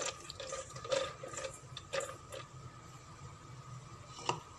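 Soaked, skinned black gram beans being tipped into a plastic blender jar: a few soft, scattered knocks and patters, several in the first two and a half seconds and one more near the end.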